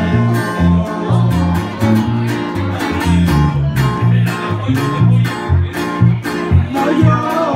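Live band music: acoustic guitars strumming and picking a melody over a steady electric bass line.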